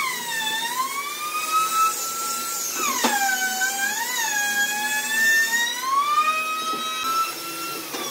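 High-pitched motor whine of an off-screen high-speed power tool, dropping in pitch as it bogs under load and climbing back as it frees up, twice.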